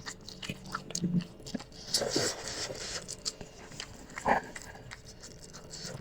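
Close-miked eating of spicy instant noodles: wet chewing with many small mouth clicks, a longer noisy stretch about two seconds in and a sharper sound just after four seconds.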